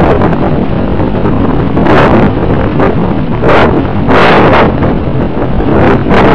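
Airflow rushing over the microphone of a camera riding on a flying RC model airplane, loud and steady, with several louder gusts of buffeting.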